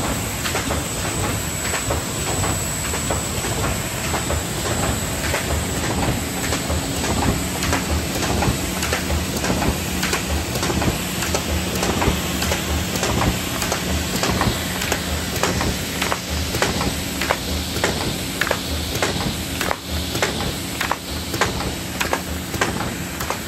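Ecosystem Quick 106 thermal film laminator running in production, sheets feeding through. A steady hiss with an irregular run of sharp clicks and clacks, and a steady hum that comes in about six seconds in.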